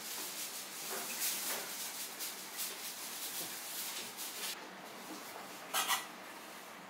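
Soft rubbing and scraping noises: a run of short scratchy strokes, with one louder scrape just before the end.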